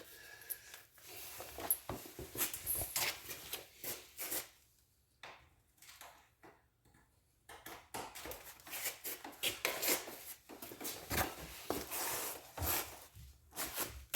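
Hand tools and parts being handled: scattered light clicks, clinks and rubbing, with a few seconds of near quiet in the middle.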